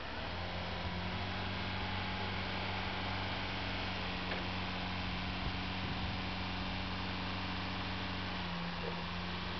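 Linde H30D diesel forklift running with its engine held at raised speed while the hydraulics lift the forks up the mast: a steady drone that steps up in level just after the start, wavering briefly near the end.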